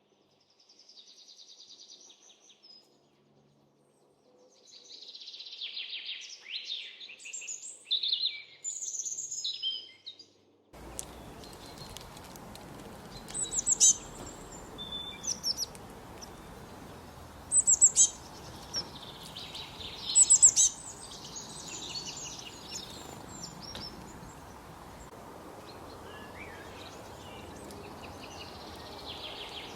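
Songbirds singing and chirping in quick high-pitched phrases. About eleven seconds in, a steady outdoor hiss comes in abruptly under the birdsong, with a few sharp, loud chirps over it.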